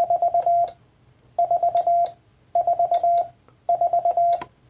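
Morse code sent on a Vibroplex key into a sidetone: the number 4 (four dits and a dah) keyed four times over, each a quick run of beeps at one steady pitch, with the key's contacts clicking at each stroke.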